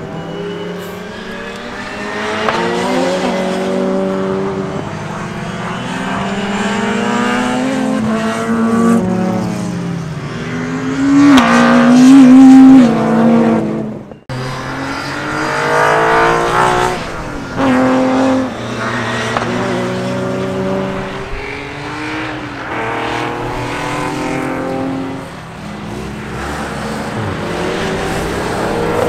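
Cars driven hard past on a race track one after another, engines revving up and dropping back between gear changes as they go by. The loudest pass comes near the middle, and the sound cuts off abruptly just after it before the next cars come through.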